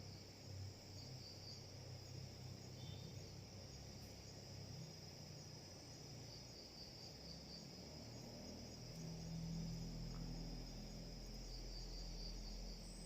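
Faint crickets trilling steadily, with a low hum underneath that swells into a low rumble about two-thirds of the way through.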